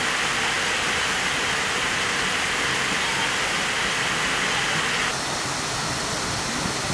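Large fountain's jets spraying and splashing down into a pond: a steady rushing hiss of falling water, a little quieter from about five seconds in.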